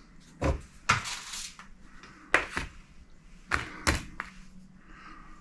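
A series of sharp knocks and clatter, about seven in all, some in quick pairs, as kitchen items are handled and set down on a counter.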